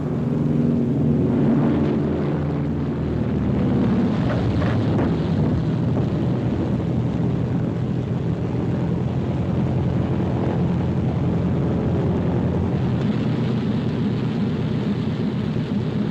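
Propeller aircraft's piston engine running with a steady drone, under a rushing noise.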